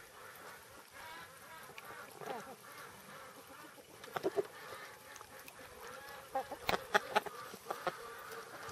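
Chickens clucking and calling in a pen, with two sharp taps about four seconds in and a quick cluster of louder taps a little past the middle.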